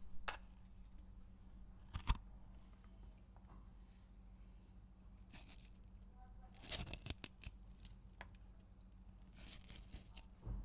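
A pepper being cut with a knife: crisp, irregular cutting and crunching strokes, a single cut near the start and another about two seconds in, then a quick run of several cuts in the middle and a few more near the end.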